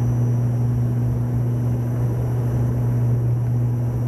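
Inside the cabin of a turboprop airliner on its descent: the steady low drone of the propellers, with a fainter hum above it and a thin high whine.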